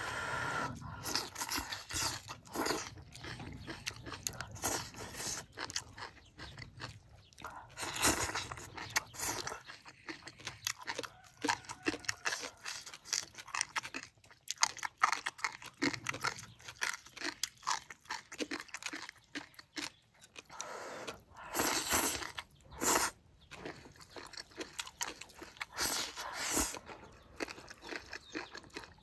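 Close-up chewing of a mouthful of stir-fried cabbage, bamboo shoots and pork with rice, in short irregular wet bites. A few louder bursts come about a quarter of the way in and twice near the end.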